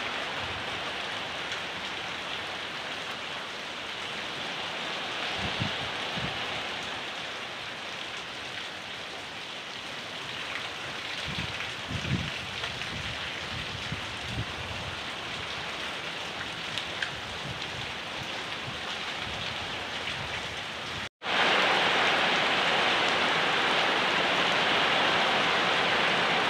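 Steady rain falling, an even hiss, with a few low thuds in the middle. About three-quarters of the way through the sound cuts out for a split second and comes back louder.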